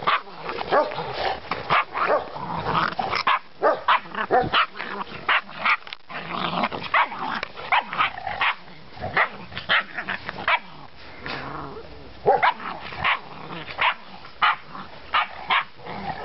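Dogs barking and yapping over and over in play, short sharp calls coming in quick irregular runs, from puppies and an adult dog tussling together.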